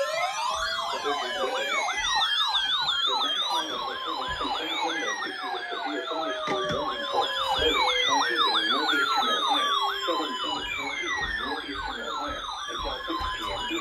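Several electronic emergency-vehicle sirens sounding at once: one in a fast yelp, another in a quicker high warble, and slower wails falling in pitch over several seconds.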